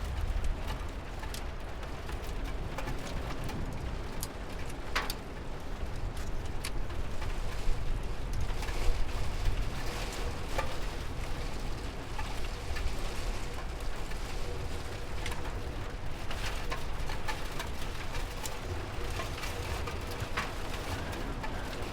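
Steady rain falling, with scattered sharp drips and a low rumble underneath.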